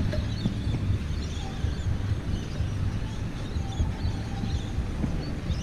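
Many birds chirping and calling, a scatter of short high calls, over a steady low rumble.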